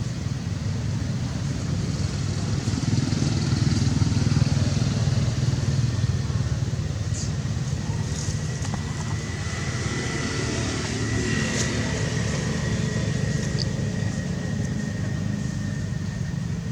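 Steady low rumble of a running engine, like a motorcycle or passing road traffic, a little louder a few seconds in, with a faint thin high tone through the second half.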